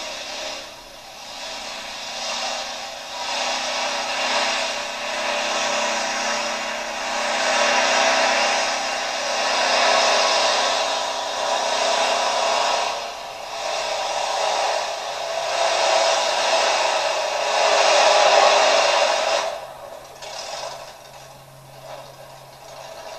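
Pulling tractor's engine run at full throttle while dragging a weight sled: a loud, rough noise that swells and dips. It drops off sharply near the end to a quieter, low steady hum as the tractor comes off the throttle.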